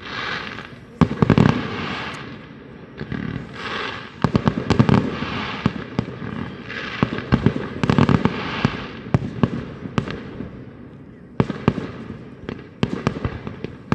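Aerial fireworks shells bursting in a public display, with clusters of sharp bangs about every three to four seconds and crackling and echo between them.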